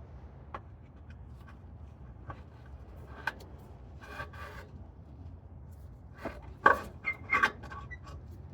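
Tools scraping and clinking against the exhaust while a rubber exhaust hanger is worked loose, with a few louder sharp metallic knocks in the second half.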